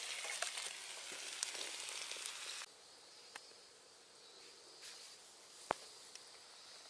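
Food sizzling in a frying pan, which cuts off abruptly after about two and a half seconds. Then faint outdoor insect chirring, with one sharp click near the end.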